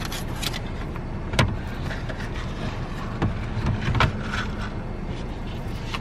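Wooden lap tray being unfolded and set down: a few sharp knocks and clatters as its folding legs and top are handled, the loudest about a second and a half in and about four seconds in, over a steady low rumble.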